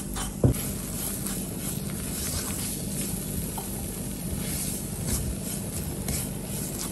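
Butter and flour sizzling gently in a non-stick frying pan while a silicone spatula stirs and scrapes them around: flour being roasted in butter for a white-sauce roux. A light knock about half a second in.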